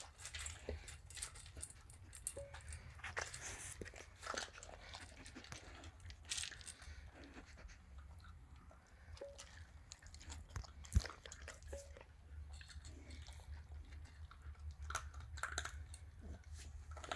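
A pet crunching and chewing large pieces of dry dog-food kibble, with irregular crisp crunches, and one sharper knock a little past the middle.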